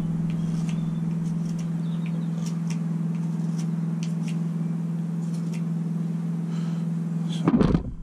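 Knife blade shaving a wooden peg to a point: scattered small, crisp clicks and scrapes of the cuts, over a steady low hum. A brief louder sound comes just before the end.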